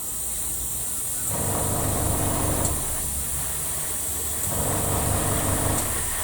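Airbrush spraying primer at about 12 psi, a steady air hiss, over the running hum of an air compressor. The middle of the sound swells and drops back in stretches every second or two.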